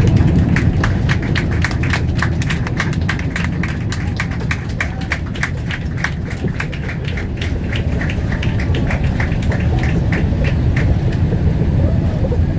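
Cabin rumble of a Boeing 787-8 airliner rolling along the runway after landing, heard from a window seat over the engine. A fast run of light ticks, several a second, sounds through most of it and stops near the end.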